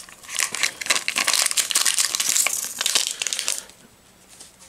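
Metal spoon stirring drink powder into a glass of water: a busy run of scraping and small clicks against the glass that stops about three and a half seconds in. The powder is not dissolving and sits at the bottom of the glass.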